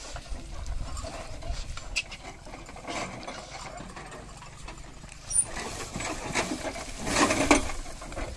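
A heavily loaded bullock cart creaking and rattling as the oxen pull it over rough ground, with irregular clicks and knocks and a louder noisy stretch about seven seconds in.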